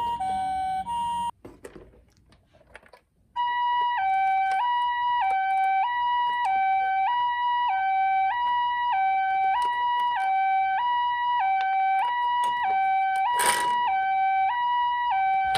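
Toy ambulance minicar's electronic siren playing the Japanese two-tone hi-lo ambulance call, a higher and a lower tone alternating about every two-thirds of a second. A first burst cuts off about a second in, and after a short pause the siren starts again at about three and a half seconds in and runs on steadily, with a brief rustle near the end.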